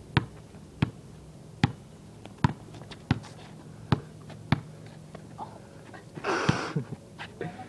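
A basketball dribbled on a concrete driveway: seven sharp bounces, about one every 0.7 seconds, over the first four and a half seconds. About six seconds in comes a short rushing noise.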